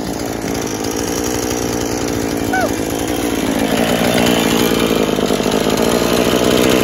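Gasoline chainsaw engine running while held clear of the wood, not cutting; its pitch drops a little about three seconds in and then holds steady.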